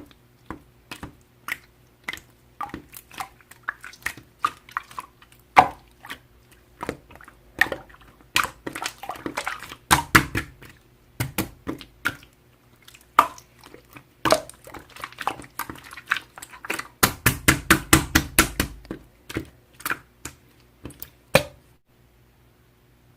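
Slime being squished and pressed by hand, making many sharp wet clicks and pops. The clicks come in quick dense runs about ten seconds in and again about seventeen to nineteen seconds in.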